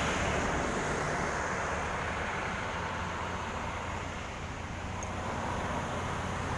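Steady outdoor background noise: a low rumble with an even hiss over it, the kind of sound that wind and road traffic make.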